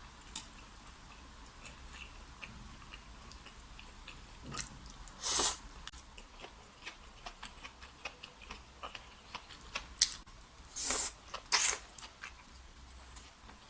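Close-up eating sounds: soft chewing with many small mouth clicks and smacks, and three louder, short noisy bursts, one about five seconds in and two close together near eleven seconds.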